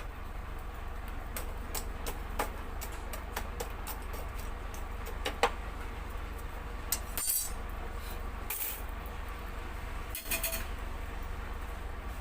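Irregular light clicks and clinks, like cooking utensils being handled, over a steady low hum, with three short scraping noises in the second half.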